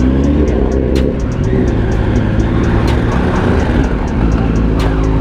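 Motorcycle engine running steadily at low revs while the bike rolls slowly.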